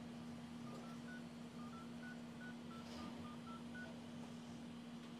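Redmi Note 4 smartphone's dialer keypad tones as digits are tapped in: about a dozen short, faint beeps of varying pitch in quick succession, over a steady low hum.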